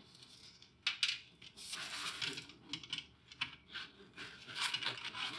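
Handling of a mini-split refrigerant line set: brass quick-connect fittings on copper tubing clicking and tapping as they are lined up and joined by hand, with the tubing's insulation rustling. One sharp click about a second in.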